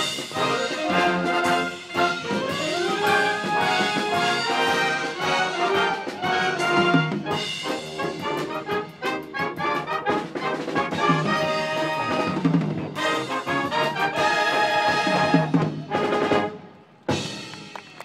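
High school marching band playing: brass section with trumpets and trombones over percussion, loud and sustained. The music drops away about sixteen seconds in, followed by one short final hit near the end.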